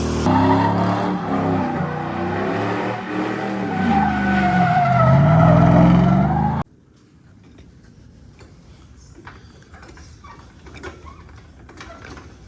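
A loud engine-like sound whose pitch rises and falls unevenly. It cuts off abruptly about seven seconds in, leaving a quiet stretch with faint clicks and knocks.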